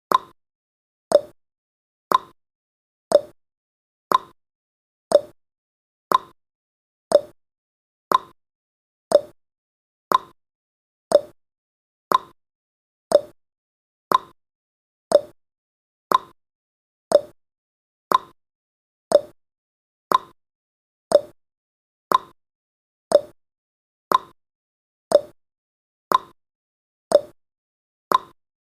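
Clock ticking sound effect of a countdown timer: one short tick every second, alternating between a higher and a lower tick like a tick-tock.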